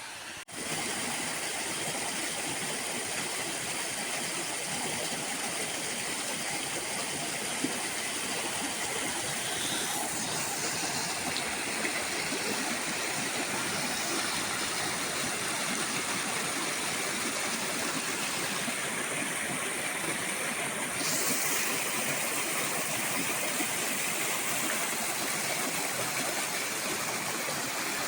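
Fast-flowing water rushing steadily, as from a stream or waterfall, growing a little louder about three quarters of the way through.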